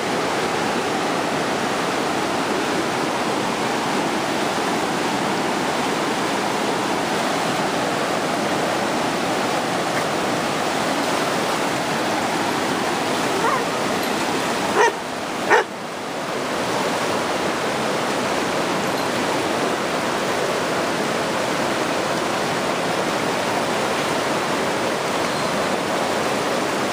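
Van Duzen River in near-flood, a steady rush of fast, high water. A dog barks twice about halfway through.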